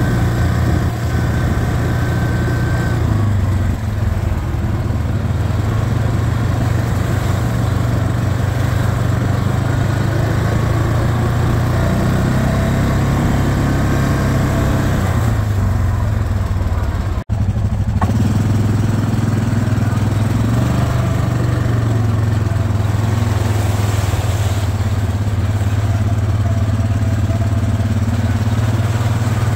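ATV engine running steadily while riding along a dirt trail, with a deep, even drone. The sound drops out for an instant a little past halfway.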